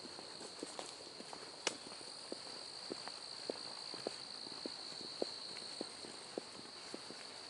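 Footsteps walking at a steady pace on a trail, about two steps a second, with one sharper click about two seconds in. Under them runs a steady, high-pitched chorus of night insects.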